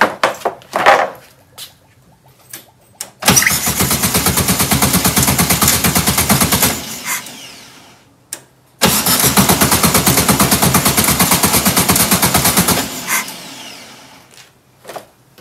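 A 1967 VW Karmann Ghia's air-cooled flat-four being cranked on the starter in two attempts of about four seconds each, a fast even chugging of roughly ten beats a second. It is running on fuel poured by hand into the carburettor bowl, because the fuel pump is suspected of needing a rebuild. A few short knocks come before the first attempt.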